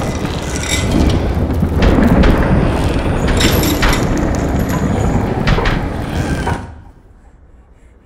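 A loud jumble of rumbling, clatter and sharp knocks that cuts off suddenly about two-thirds of the way in.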